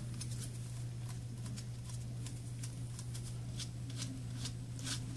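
Faint scattered clicks and light scrapes of small tools and fingers handling a Samsung Galaxy S3 during a screen digitizer replacement, a few a little louder near the end, over a steady low hum.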